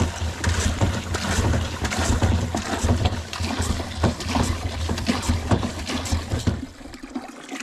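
Water running from a hose into a plastic bucket, a steady splashing with a low rumble, drawn from a plastic barrel; it stops near the end.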